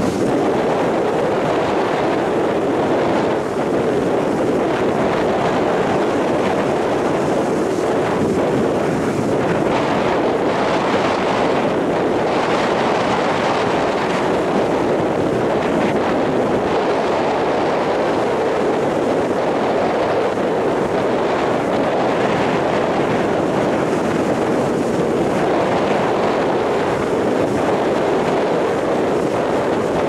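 Rough sea surf breaking and washing up a sandy beach in strong wind, a continuous roar of water that swells and eases as the waves come in, with wind blowing on the microphone.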